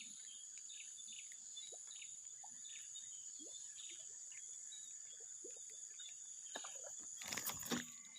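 Steady high-pitched drone of crickets or other insects with many short bird chirps over it. About seven seconds in comes a brief, loud rustling burst, the loudest sound here.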